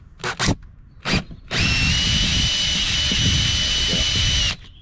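Cordless drill with a 7/32-inch bit going through a pilot hole in a Sea-Doo jet ski hull. It starts with a few quick blips of the trigger, then runs steadily for about three seconds with a high whine and stops suddenly near the end.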